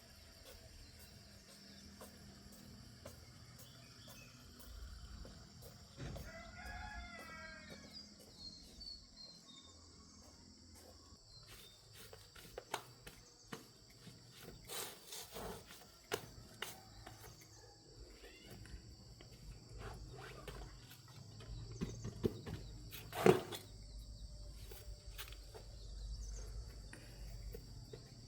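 A rooster crows once, about six seconds in, over a steady high hum. Scattered knocks and clicks follow later, the loudest about 23 seconds in.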